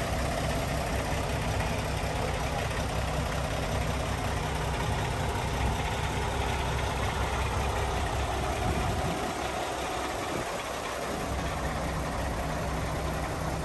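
Heavy diesel truck engine running steadily at idle, a continuous low rumble. The low end of the rumble thins out for a couple of seconds about nine seconds in, then returns.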